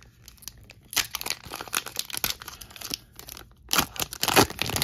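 A foil wrapper of a Fleer Marvel trading-card pack being torn open by hand and crinkled, with quick crackling tears, loudest in the last second or so.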